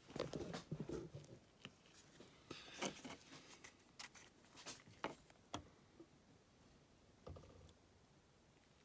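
Faint scattered ticks and rustles of hand work: a small paintbrush dabbing paint onto an O-scale model boxcar and a gloved hand handling the car. The ticks thin out near the end.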